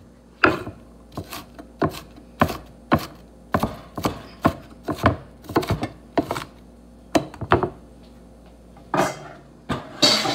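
Kitchen knife chopping onion on a wooden cutting board: sharp, irregular strokes about twice a second, with two longer, noisier strokes near the end.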